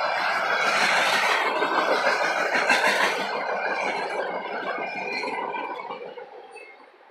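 Steel wheels of a freight train's refrigerated boxcars rolling over the rails, with a rumble and thin high squealing tones. The sound fades away quickly about six seconds in as the end of the train passes.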